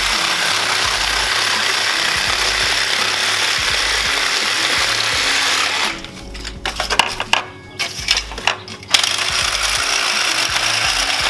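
Cordless reciprocating saw running steadily, cutting through scrap HVAC metal. It stops for about three seconds past the middle, when a few sharp knocks and clanks are heard, then starts cutting again.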